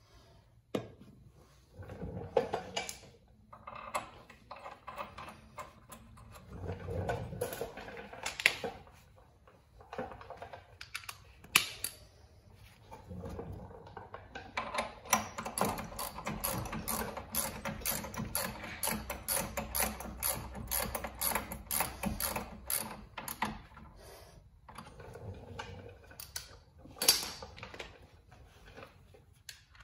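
Ratchet clicking in a fast run for several seconds as a brake caliper bracket bolt is run in, with scattered clinks and knocks of tools and metal parts before and after.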